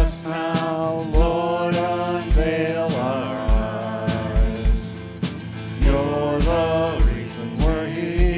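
Live praise band playing a worship song: a man and a woman sing together over electric bass, keyboard, acoustic guitar and a steady drum beat.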